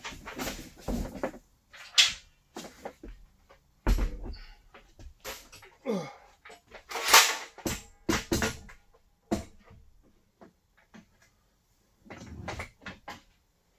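Irregular knocks and clatters of metal drywall hoist parts being handled and fitted together during assembly, with a few louder clanks and a short scraping slide about six seconds in.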